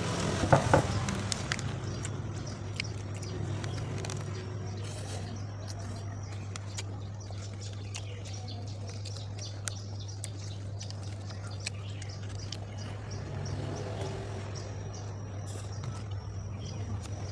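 Chewing and crunching of a toasted Turkish-style bánh mì close to the microphone: scattered sharp crackles, with a few louder crunches about half a second in, over a steady low hum.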